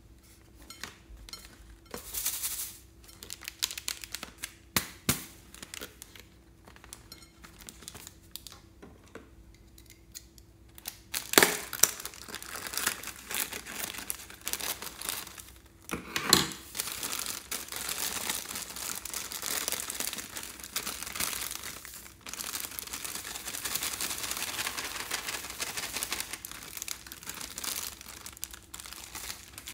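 Foil party balloon being crinkled and handled, then cut open with scissors: scattered crackles, two sharp loud snaps about 11 and 16 seconds in, then steady dense crinkling of the foil.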